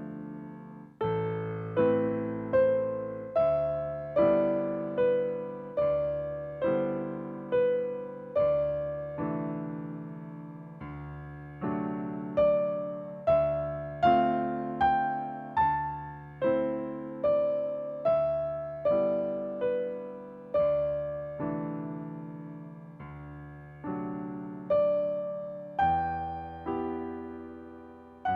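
Slow instrumental piano music, single melody notes and chords struck about once or twice a second over a held bass, each note fading away.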